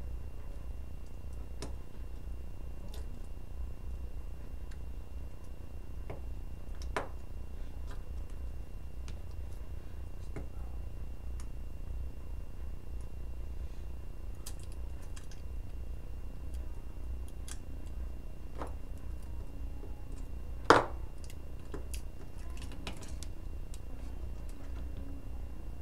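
Scattered light clicks and taps of small tools and phone parts being handled on a repair bench, with one sharper click a little past the middle, over a steady low hum.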